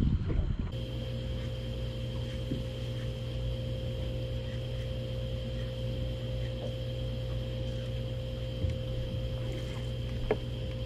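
Electric trolling motor on a bass boat running with a steady hum: a few fixed tones over a low rumble. Two small knocks sound near the end.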